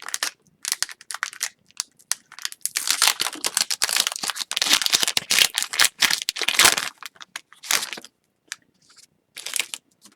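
Foil wrapper of an Upper Deck hockey card pack crinkling and tearing as it is worked open, in short bursts with a dense run of crinkling in the middle.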